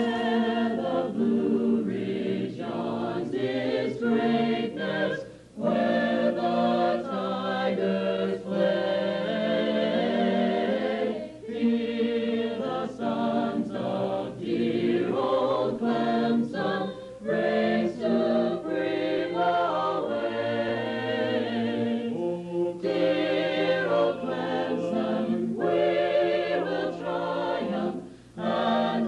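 Choir singing held, wavering notes over a steady low accompaniment, pausing briefly between phrases.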